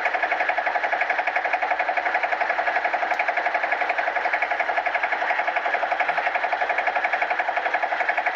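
Engine of a small wooden fishing boat under way, running steadily with a rapid, even chugging.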